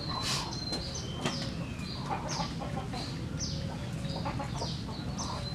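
Chickens clucking, with a run of short, high calls that fall in pitch, one or two a second, over a steady low background hum.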